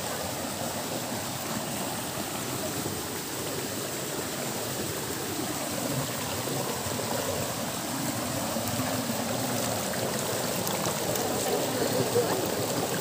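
Small stream cascade spilling over rocks into a shallow pool, a steady flow of water splashing and gurgling.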